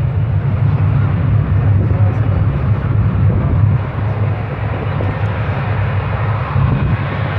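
F-35B Lightning II's Pratt & Whitney F135 jet engine running at high power in its vertical-lift mode, a steady, heavy, low rumble with a rushing hiss above it.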